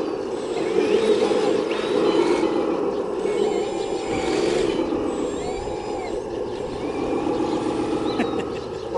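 Full-size excavator running steadily under load as it digs, with a faint whine that rises and falls in pitch over the engine.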